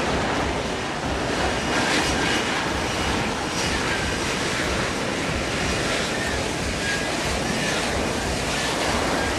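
F-35B Lightning II hovering for a vertical landing: its jet engine and lift fan make a loud, steady rushing roar that does not let up.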